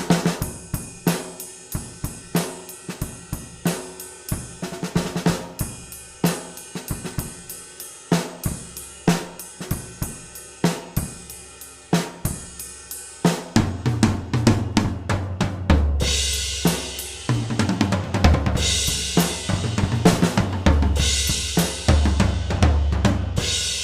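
Gretsch Brooklyn drum kit with Black Dot heads played as a sound demo: a steady beat of drum hits for about thirteen seconds, then busier playing with bass drum, toms and crash cymbals. It ends on a cymbal crash that rings on.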